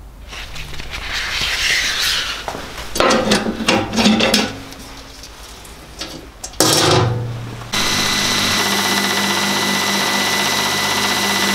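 A sanding belt is handled and fitted onto a belt grinder, with rustling and several clattering knocks. About two-thirds of the way in the grinder starts up. It then runs steadily with a high whine while a steel wrench is ground on the 400-grit belt.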